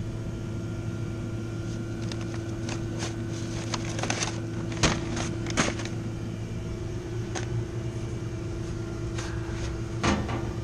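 A steady machine hum with a constant tone, with a run of light clicks and taps around the middle and a couple more near the end.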